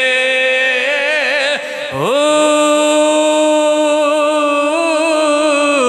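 A man's voice chanting a line of Punjabi devotional verse: wavering, ornamented singing for about two seconds, a brief break, then one long, steady held note.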